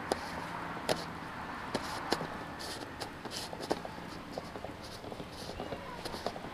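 Plastic screw-top lid being twisted shut by hand on a jar of fish-feed pellets: irregular sharp clicks, the loudest few in the first four seconds, then smaller ticks.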